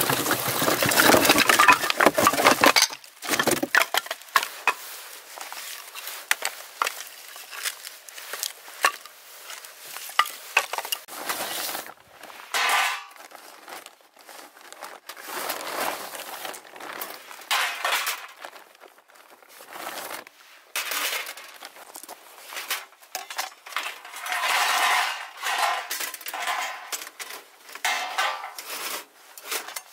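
Camping dishes and cutlery being handled, clinking and clattering in many short knocks, with rustling stretches; busiest and loudest in the first few seconds.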